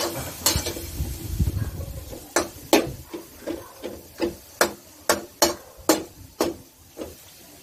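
Metal spatula clanking and scraping against an aluminium wok while stirring chopped pork, a string of about a dozen sharp, irregular clinks at roughly two a second.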